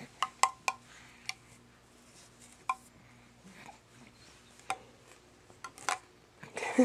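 Irregular sharp taps and clicks, about eight to ten over several seconds, several close together near the start, like small hard objects knocking together.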